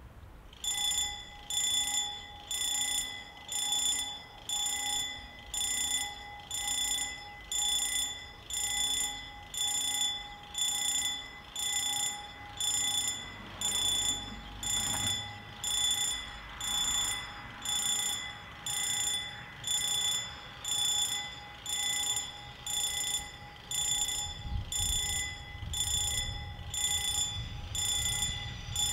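Railway level crossing warning bell ringing about once a second, starting abruptly just after the beginning: the crossing is signalling an approaching train. A low rumble comes in near the end.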